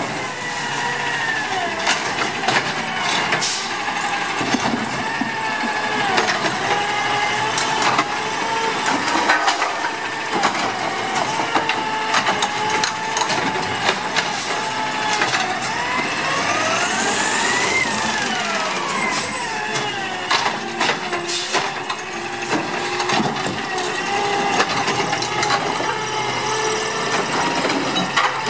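2016 CNG Autocar ACX garbage truck with a Dadee Scorpion automated side-loader body pulling up and working a cart. The natural-gas engine runs under a wavering hydraulic whine that rises and falls about two-thirds of the way through. Air-brake hisses and clanks of the arm gripping the cart mix in, and the cart is lifted to dump near the end.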